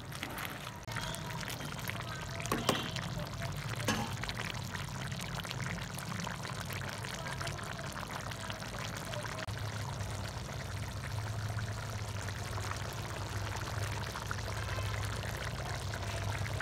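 Crab and okra curry simmering in a clay pot on a gas stove, a steady bubbling hiss. A couple of light knocks come about three and four seconds in.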